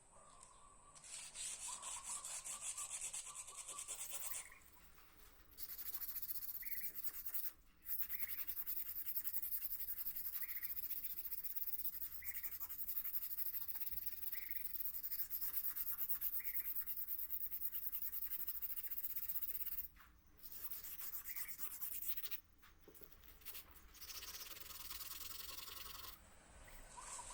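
Sandpaper rubbing back and forth on the steel blade of a Japanese yanagiba knife in quick strokes, to take off rust. It comes in several runs with short breaks between them.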